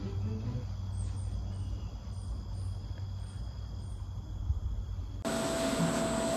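Low rumble of wind and motion on a phone microphone outdoors, with faint, high, repeated chirping. About five seconds in it switches abruptly to a steady machine hum carrying one held tone, from a running factory conveyor belt.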